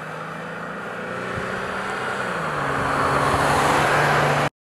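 Jeep Gladiator Mojave pickup approaching and passing at speed on pavement: engine hum and tyre noise growing steadily louder, the engine note dropping slightly about halfway through, then cutting off suddenly near the end.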